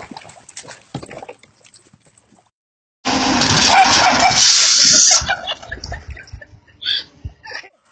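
A dog's short calls, and a loud rushing noise that starts suddenly about three seconds in and lasts about two seconds.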